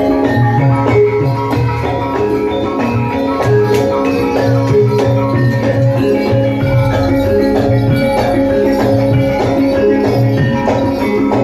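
Javanese gamelan music for a jaran kepang dance: bronze metallophones and gongs ring sustained pitches over a low drum beating in a steady rhythm.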